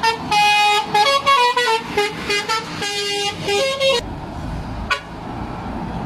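A lorry's telolet horn, a multi-tone air horn, playing a quick tune of short notes that step up and down in pitch. It stops about four seconds in, leaving a low rumble of passing lorries.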